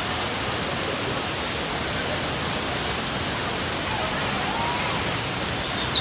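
Looking Glass Falls, a waterfall, pouring steadily: an even rush of falling water. A few high, squeaky calls cut in near the end.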